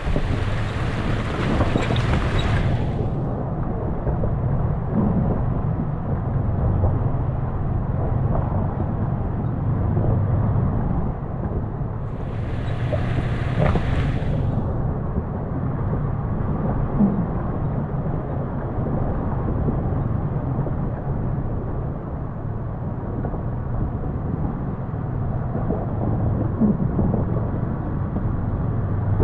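Toyota FJ Cruiser's 4.0-litre V6 running steadily as it drives along a dirt trail, with engine and tyre rumble, wind on the roof-mounted microphone and a few light knocks from the vehicle going over the trail.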